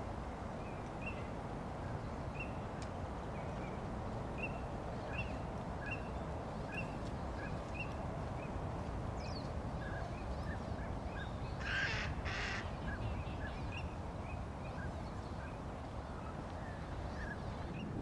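Black-winged stilts calling: a steady series of short, sharp notes, one or two a second, at two pitches, with two louder, harsher calls about twelve seconds in. A steady low rumble runs underneath.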